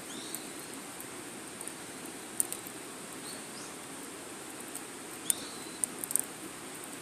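Wood fire burning with a steady low hiss and sharp crackling pops, the loudest a second or two in and a quick cluster past the middle. A few short, faint squeaking whistles rise in pitch.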